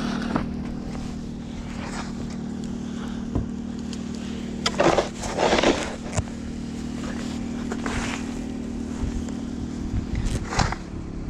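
An engine running steadily at idle, with a few short scrapes of a snow shovel over it.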